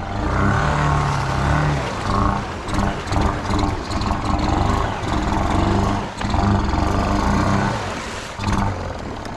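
Honda Rancher 350 ATV's single-cylinder engine revving up and down under load while pushing through deep water.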